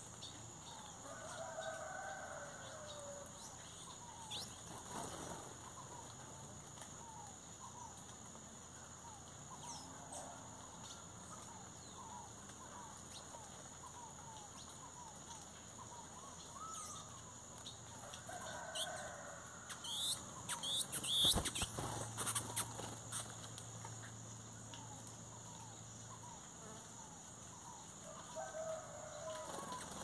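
Wings flapping as black birds fly to and from a papaya feeder, loudest in a flurry about two-thirds of the way in. A rooster crows three times in the distance, near the start, in the middle and near the end, over the chirps of small birds.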